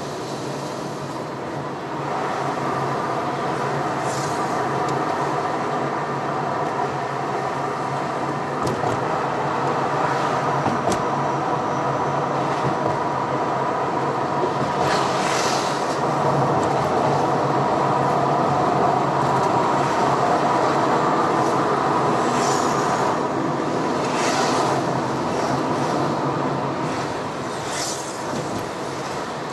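Steady engine and tyre noise heard from inside a moving car in city traffic, a continuous hum with a faint whine that grows louder about two seconds in. A few brief whooshes of passing traffic cut through, the clearest in the middle as the car runs close beside a city bus.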